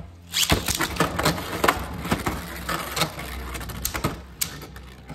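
Two Beyblade Burst spinning tops whirring across a plastic stadium floor, with many irregular sharp clacks as they strike each other and the stadium.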